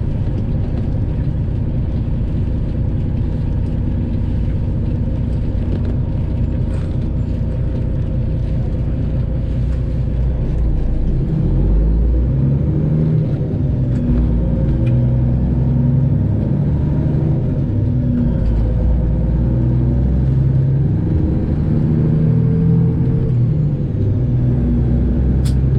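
Detroit Diesel 12.7-litre engine of a Freightliner Classic XL semi truck running under way, heard from inside the cab as a steady low rumble. About halfway in it gets a little louder and its pitch steps up and down.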